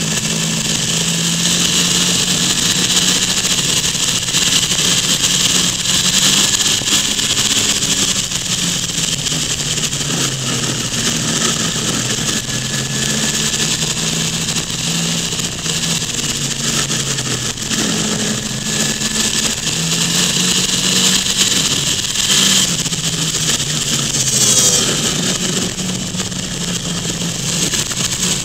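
Car engine running under way, its pitch rising and falling several times as it is driven through bends, over steady wind and road noise.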